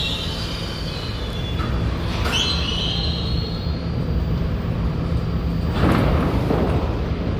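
New York City subway train moving along a station track: a steady low rumble, with high wheel squeal fading out at the start and returning briefly about two seconds in, and a short rush of noise about six seconds in.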